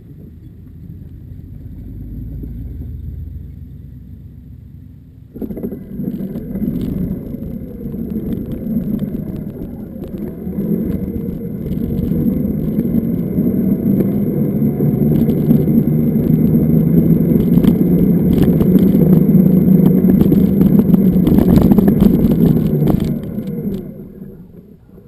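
Zero FX electric motorcycle on the move: a low rumble, then from about five seconds in a loud rushing noise with the motor's whine rising in pitch as it gathers speed. It grows louder and dies away near the end.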